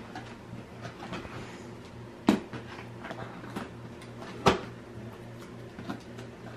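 A large wrapped cardboard gift box being handled and turned over, with two sharp knocks, a little after two seconds and again about four and a half seconds in, and small scuffs and clicks between. A steady low hum runs underneath.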